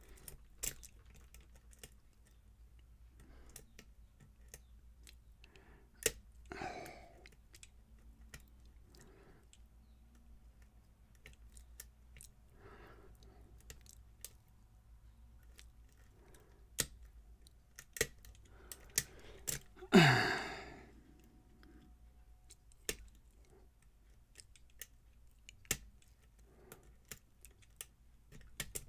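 Lock pick and tension wrench working the pins of a challenge lock: scattered, irregular small metallic clicks and ticks as pins are set and reset. A brief louder rustling sound with a falling pitch comes about two-thirds of the way through.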